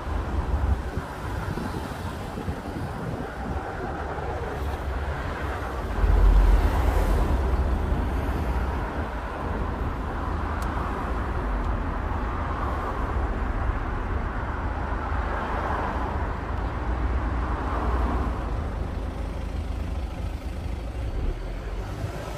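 Car running in slow stop-and-go traffic, heard from inside the car as a steady low rumble of engine and road noise that swells for a couple of seconds about six seconds in.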